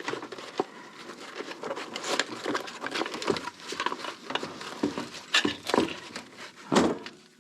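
Handling noise from opening a carrying case and going through its contents: rustling and crinkling broken by many light clicks and knocks.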